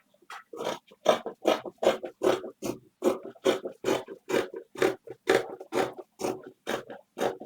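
Fabric scissors cutting through cloth in a steady run of short snips, about three a second.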